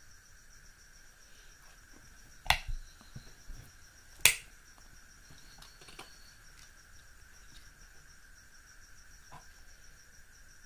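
Two sharp plastic clicks about two seconds apart, with a few faint taps after, as a small action camera and its USB battery charger are handled. A steady high-pitched tone runs underneath.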